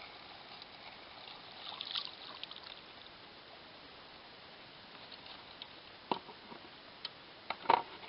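Quiet steady outdoor hiss with a brief crackle about two seconds in, then a few sharp clicks and knocks in the last two seconds as the fishing rod is handled and set back down.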